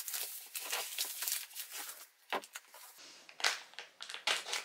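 Protective wrapping crinkling and rustling as it is unfolded and pulled back by hand, in irregular crackles with a short lull about two seconds in and louder crinkles near the end.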